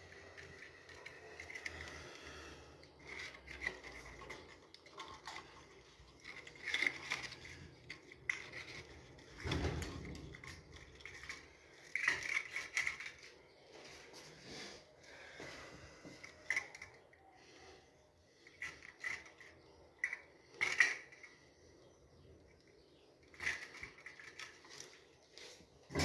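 Handling noise from fitting wires into a WiFi mini smart switch module: scattered light clicks, taps and scrapes of plastic and wire, with a dull bump about ten seconds in.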